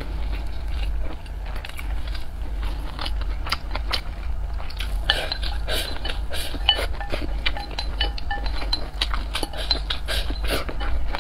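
Chopsticks repeatedly clicking and scraping against a glass bowl as rice is shovelled into the mouth, with close-up chewing and mouth sounds. The glass clinks ring briefly, over a steady low hum.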